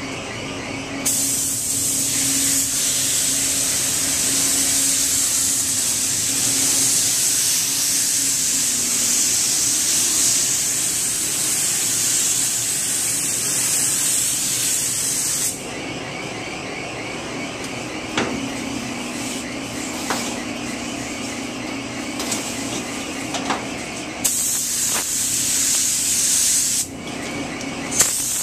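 Compressed-air paint spray gun hissing as it sprays paint onto a boat hull. One long pass of about fourteen seconds starts a second in, then the gun stops, and two shorter bursts come near the end. A steady low hum runs underneath.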